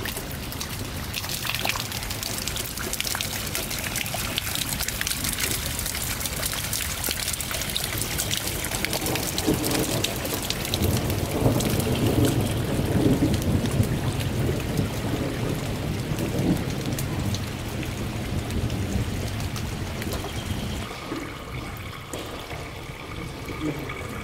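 Heavy rain falling on pavement and stonework, a dense patter of drops, with a low rumble of thunder about midway through.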